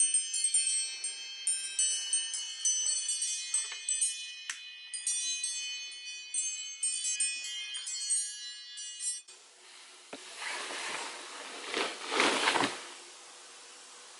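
Phone alarm ringtone: a quick melody of high, bell-like chiming notes that stops abruptly about nine seconds in as it is switched off. It is followed by a few seconds of bedding rustling.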